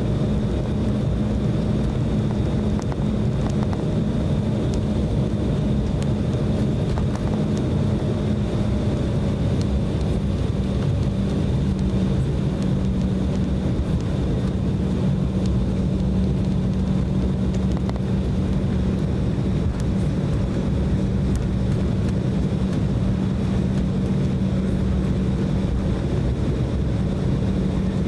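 Cabin noise aboard an Embraer E190 taxiing: its General Electric CF34-10E turbofans run at taxi power as a steady low hum with a faint high whine, over a continuous low rumble.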